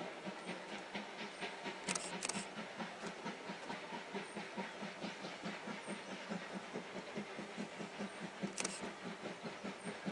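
Steam locomotive C11 325 working toward the listener, its exhaust chuffing in a steady rapid beat. A few brief sharp high sounds cut in about two seconds in and again near the end.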